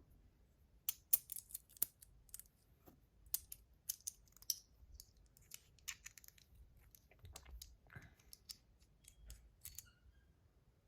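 Irregular light clicks and taps of a fidget spinner's buttons being pulled off, turned and pressed back onto the bearing.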